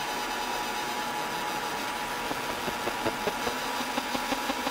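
Fibre laser engraving text into mild steel: a steady hiss and buzz with a constant high hum. From about three seconds in, quick ticks come several times a second.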